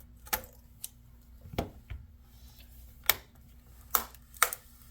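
Plastic laptop screen bezel being pressed home: about five sharp, irregular snaps as its clips click into the lid. It sounds like breaking but is only the clips seating.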